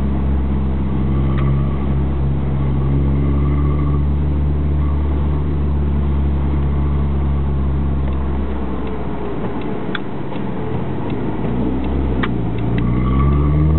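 Alfa Romeo 156 Twin Spark four-cylinder engine running through an aftermarket T.Welding muffler. It holds a steady note for about eight seconds, drops away with a few sharp clicks, then rises again as the revs climb near the end.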